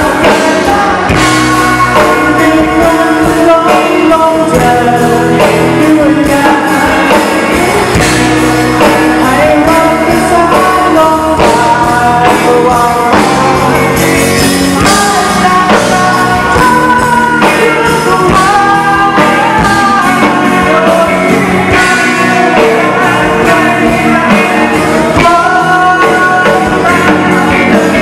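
Live rock band playing loud, with a male singer singing over electric guitar and drums.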